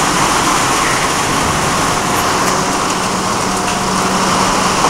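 Thunderstorm rain falling in a steady downpour, an even hiss with no breaks.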